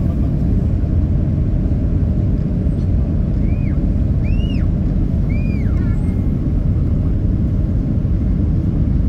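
Steady, loud rumble of a Boeing 767-300 in flight, the engine and airflow noise heard inside the cabin. A little past the middle, three short high squeaks rise and fall over it.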